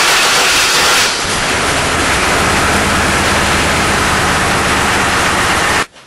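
1999 Chevy Blazer's 4.3-litre Vortec V6 just started and running, heard close up through the wheel well, with a steady low hum under a loud rushing noise. It is loudest in the first second, then steady, and cuts off suddenly near the end. The engine has a misfire on cylinder 5 (code P0305).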